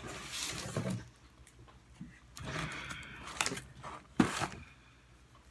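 Cardboard box being handled: rustling and scraping as it is picked up and its flaps move, with one sharp knock about four seconds in.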